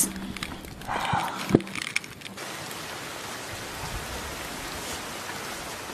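Steady hiss of rain, setting in about two seconds in after a couple of sharp knocks.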